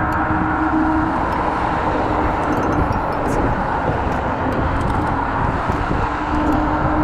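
Steady rushing noise of an electric scooter ridden on city roads: wind on the action-camera microphone and tyre noise, with a steady hum at the start and again near the end.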